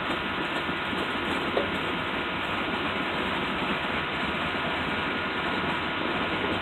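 A string of gravel hopper cars rolling slowly along the track, giving a steady rolling noise, with one brief sharper sound about a second and a half in.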